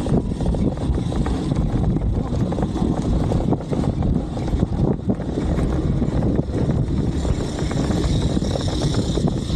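A vehicle engine running steadily with a low rumble, with wind buffeting the microphone.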